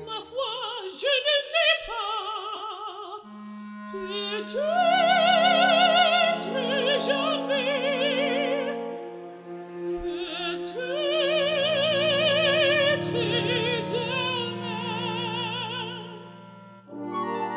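Background music: an operatic voice singing long notes with wide vibrato over a sustained orchestral accompaniment, with a brief quiet dip between phrases near the middle.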